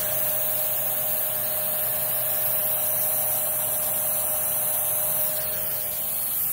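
Riccar R25 upright vacuum's suction motor running steadily with its nozzle sealed over a water-lift gauge during a suction test, brush roll off: an even rushing noise with a steady whine through it.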